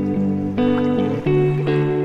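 Background music: a guitar-led instrumental whose chords change about every half second.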